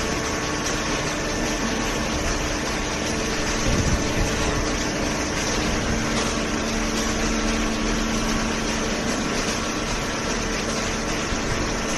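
Horizontal hydraulic cardboard baler running: a steady machine hum with several held tones, one more tone joining about halfway through.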